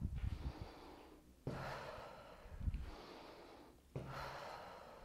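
A woman breathing hard during a brisk stepping workout: three long breaths, each starting sharply and fading, with a few dull low thumps.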